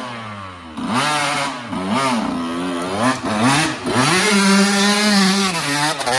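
Dirt bike engine revving in a series of short blips that rise and fall in pitch, then held at high revs for about two seconds before dropping and revving up again near the end.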